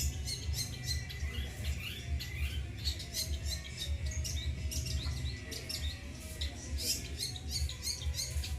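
Long-tailed shrike (cendet) calling in a rapid, continuous run of short high notes, over a steady low hum.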